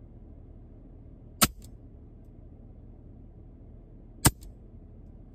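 Two shots from an EDgun Leshiy 2 PCP air rifle fired from a car window, about three seconds apart, each a sharp crack followed by a faint click, over a steady low rumble.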